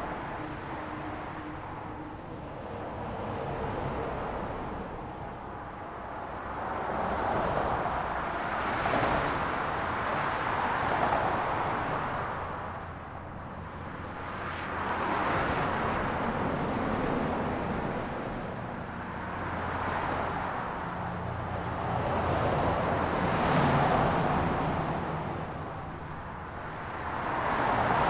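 Road traffic, with vehicles passing one after another. Their tyre and engine noise swells and fades every few seconds over a steady background rumble.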